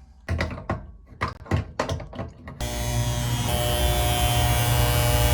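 A few clicks and knocks, then about two and a half seconds in a 240-volt water-source heat pump starts up and runs with a steady loud electrical hum and whir, now switched on through its newly replaced contactor.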